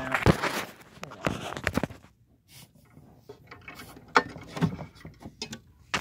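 Irregular knocks, clicks and light rattles of a wooden wall clock case being handled and moved, with a short quiet stretch about two seconds in.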